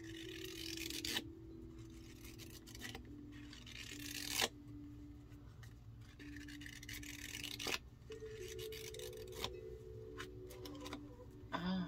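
A cardboard deck box and a stack of hexagonal cards rub and slide against each other as the lid is worked off and the cards are drawn out. There are three brushing scrapes, each cut off sharply; the one about four and a half seconds in is the loudest.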